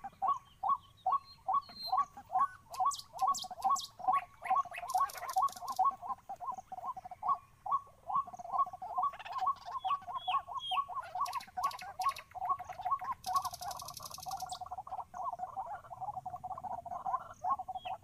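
White-breasted waterhen calling repeatedly: a long unbroken run of short, same-pitched notes, about three to four a second, that crowd together in the middle. Fainter high chirps and trills from other birds sound over it.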